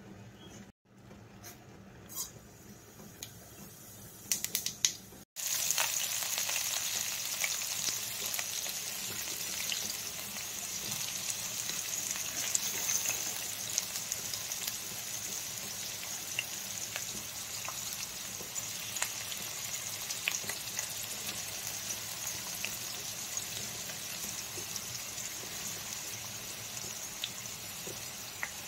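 Chopped onions frying in hot oil in a stainless steel pan: a steady sizzle that starts suddenly about five seconds in, with scattered pops and crackles. Before that there are only a few faint clicks.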